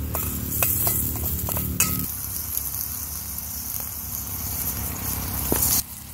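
Scallion oil (green onions in hot fat) sizzling in a small pan while a utensil stirs it, clinking against the pan several times in the first two seconds. The sizzling cuts off suddenly near the end.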